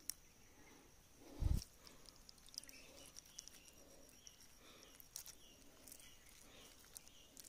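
Quiet stream-side ambience: a faint steady high insect drone, short faint chirps about twice a second from about three seconds in, and one dull thump about a second and a half in.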